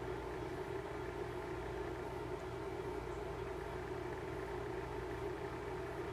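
A steady, unchanging low hum.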